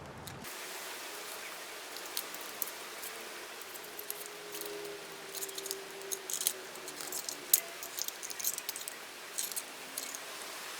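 Small scattered clicks and light scrapes of a pry tool working under an iPhone 5 battery, trying to break its two-sided adhesive tape, over a steady hiss.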